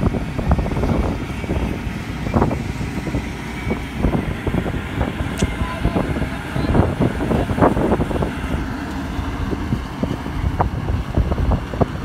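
Combine harvester running as it cuts wheat, a steady machine rumble broken by irregular wind buffeting on the microphone.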